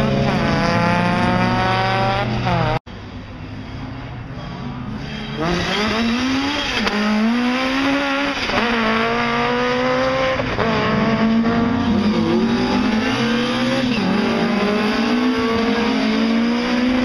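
Rally car engine at high revs, its pitch climbing and then falling, cut off abruptly about three seconds in. After a few quieter seconds a rally car's engine rises again and runs hard through the gears, its pitch climbing and dropping back several times.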